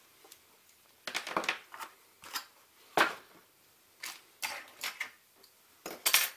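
Hard plastic objects being handled: a string of knocks, clicks and rustles starting about a second in, the sharpest knock about three seconds in.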